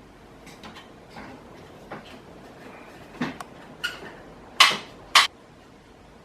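A clamp being fitted onto wooden slats and tightened: a series of light clicks and knocks, then two sharp clacks about half a second apart near the end.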